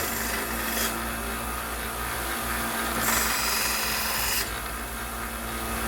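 Harbor Freight 1x30 belt grinder running with a steady motor hum while a knife blade is ground against its 220-grit belt, giving a harsh hiss that ends about a second in and comes back for a second pass around three seconds in.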